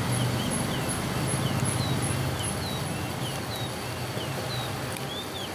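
Birds chirping in the background, short high chirps repeating two or three times a second, over a low steady hum.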